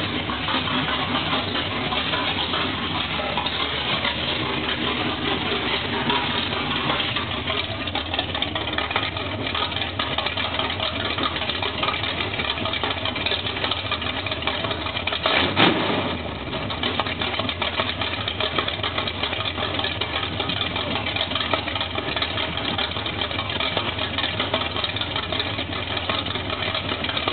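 1978 Camaro Z28's 350 small-block V8, mildly built with a Comp Cams 268H camshaft, idling steadily after a hot start. There is one brief louder surge about halfway through.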